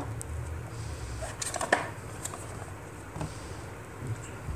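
Quiet room with a low hum at first and a few soft clicks and rustles of handling, the sharpest click about a second and a half in.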